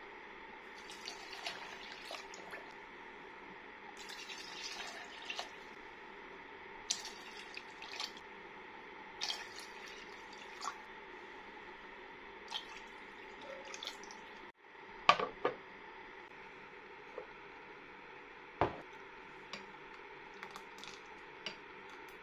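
Water poured and dripping into a glass blender jug of mango pieces and sugar, with scattered short ticks and splashes over a steady low hiss. A few sharper knocks come about two-thirds of the way through.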